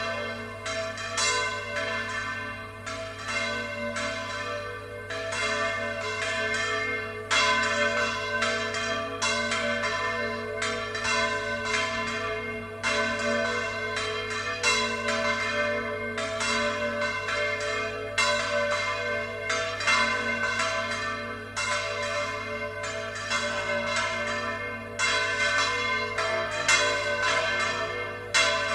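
Church bells rung in volteo, swung full circle so their clappers strike over and over, a stroke roughly every second in an uneven pattern, with the bell tones ringing on and overlapping between strokes.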